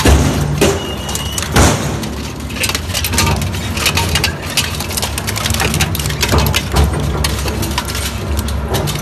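Twin-shaft shredder's toothed steel cutters crushing and tearing rusty square steel tubing: a steady low drive hum under irregular sharp metal cracks and crunches, with two louder bangs in the first two seconds.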